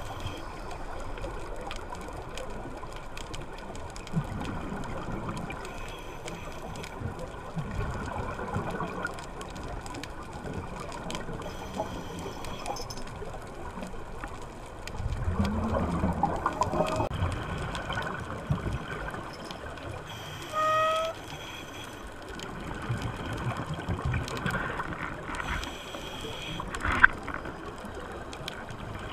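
Underwater sound of a scuba diver breathing through a regulator: bursts of exhaled bubbles gurgling over a steady watery hiss, loudest about halfway through and again near the end. A short steady beep sounds once, just after the first loud bubble burst.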